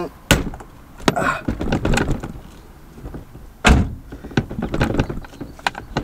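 Nissan 350Z stock steering wheel being yanked and rocked on its splined steering shaft to break it free: two heavy thuds, one right at the start and one just past halfway, with lighter knocks and clicks between.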